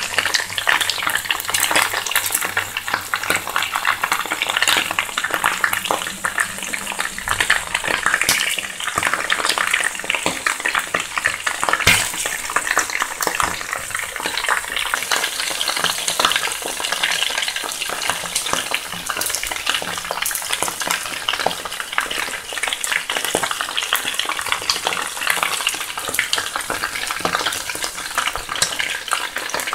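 Chicken wings pan-frying in shallow hot oil in a skillet: a steady, dense sizzle with constant crackling of spitting oil, and one louder pop about twelve seconds in.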